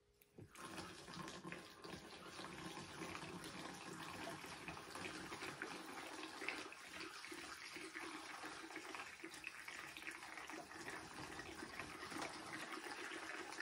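Kerosene pouring steadily from a plastic jug through a funnel into an empty snowmobile fuel tank, starting about half a second in.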